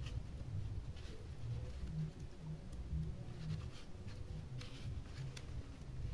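Faint handling noises of insulating tape being wrapped around a soldered wire joint: light rustling and a few small scattered clicks over a low steady rumble.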